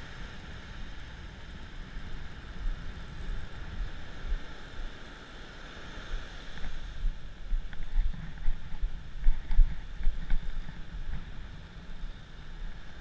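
Wind buffeting the microphone of a head-mounted action camera in irregular gusts, strongest about two-thirds of the way through, over the steady hiss and wash of breaking surf on a sand beach.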